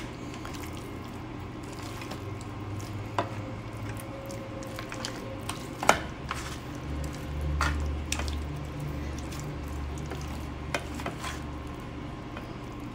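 Hands mixing marinated raw chicken pieces in an aluminium baking tray: soft wet squishing with scattered knocks of chicken and fingers against the metal tray, the loudest about six seconds in. A low steady hum runs underneath.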